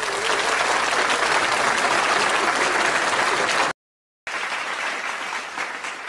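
Applause: a dense, even patter of many hands clapping that cuts off abruptly about three and a half seconds in. After a short silent gap, a quieter steady outdoor noise follows.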